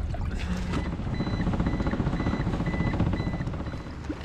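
Outboard motor running, with a high electronic beep repeating about twice a second for a few seconds over it.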